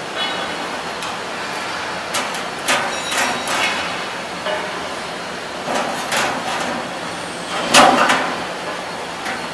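LMS Auto Line V HVAC duct production line running: steady machine noise with irregular metallic clanks and bangs as sheet metal is worked, the loudest bang near the end.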